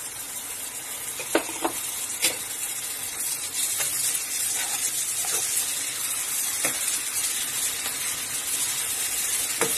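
Onions, chillies and cumin paste sizzling in hot oil in an aluminium wok: a steady hiss, with a spatula now and then knocking and scraping against the pan as the mixture is stirred.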